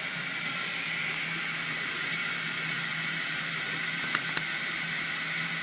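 Toilet tank refilling after a flush test on a newly installed tank and flush valve: a steady hiss of water rushing through the fill valve, with two sharp clicks about four seconds in.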